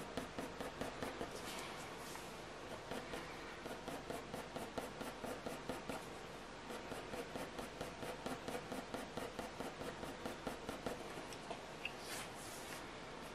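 Graphite pencil scratching across hot-press watercolour paper in quick, short, rhythmic shading strokes, darkening the drawing.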